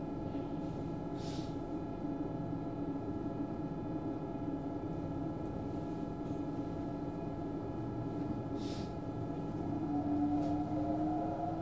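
Train running, heard from inside the carriage: a steady rumble with a held motor whine that starts rising in pitch near the end as the train picks up speed. Two brief hisses, about a second in and near the end.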